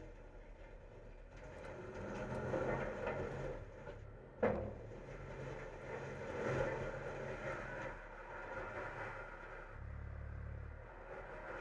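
Front-loader garbage truck's hydraulic packer working a hopper load of recyclables, the truck's diesel engine running with its note rising and falling as the hydraulics work. One sharp clunk about four and a half seconds in.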